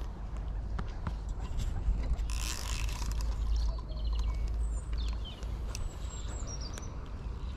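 Wind rumbling on the microphone outdoors, with a brief rustling noise about two and a half seconds in and a few short bird chirps in the second half.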